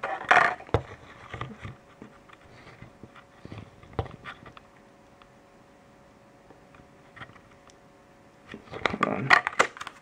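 Scattered light clicks and knocks of handling on a desk, most of them in the first four seconds, over a faint steady hum.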